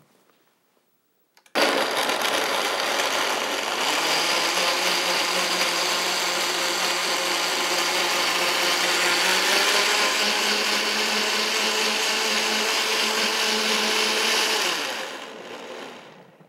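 Countertop blender blending frozen blueberries, banana, orange sections and water into a smoothie. The motor starts about a second and a half in and runs steadily, its pitch rising slightly about halfway through. It then winds down and stops near the end.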